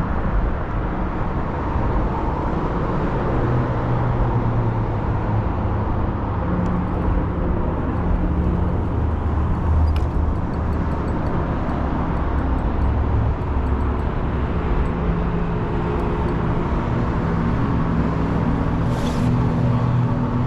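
Boat's outboard motor running steadily under way, a low drone whose pitch shifts slightly, over a constant rush of noise.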